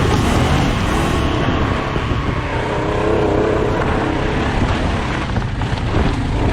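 Honda Transalp 600 V-twin motorcycle engine running while riding off-road, its note rising and falling with the throttle over a steady rush of noise.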